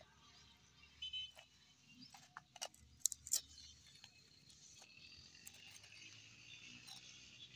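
Faint outdoor ambience: a few sharp clicks and a short chirp in the first half, then a steady high buzz.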